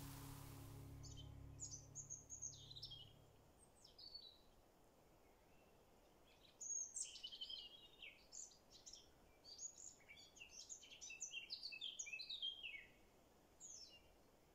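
Faint songbird singing in quick high chirps and trills, in several phrases, busiest from about seven to thirteen seconds in. The tail of background music fades out in the first few seconds.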